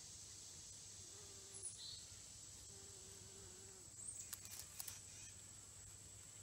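Faint, steady, high-pitched drone of insects. A few soft clicks come about four seconds in.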